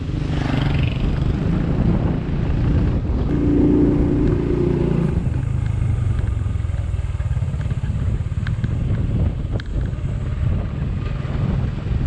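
Motorcycle engine running while riding, with wind buffeting the microphone; the engine note drops lower about five seconds in.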